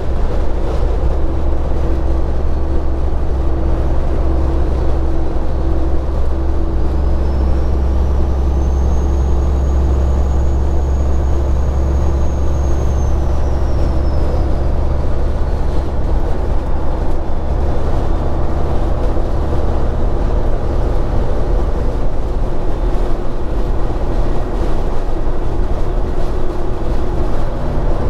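Straight-piped Caterpillar 3406E inline-six diesel in a semi truck, running steadily on the road with a low exhaust drone. A thin high whistle rises about six seconds in, holds, then fades away by about sixteen seconds.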